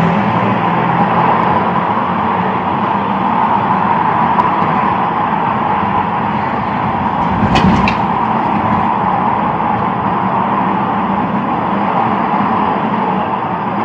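Steady road-vehicle noise, an even rushing sound, with two short sharp clicks a little past halfway.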